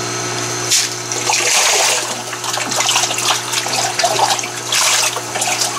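Tilapia fry splashing and snapping at the water surface as they take food, over water splashing down from a PVC return pipe into the tank, with a steady low hum underneath. Stronger bursts of splashing come about a second in and again near the end.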